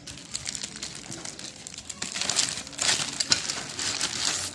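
Thin clear plastic bag crinkling and rustling as hands handle and open it, getting louder about halfway through.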